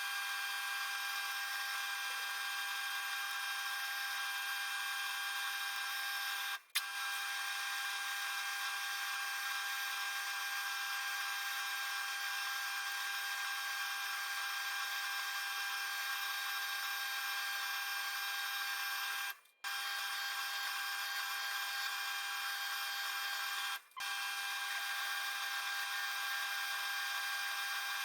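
Milling machine spindle running with a steady, even whine while drilling holes in a cast aluminium plate. The sound drops out briefly three times.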